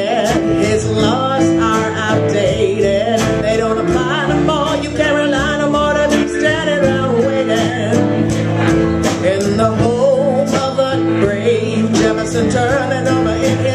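Live acoustic country-style music: a strummed guitar with a wavering melodic lead line over it, an instrumental stretch without sung words.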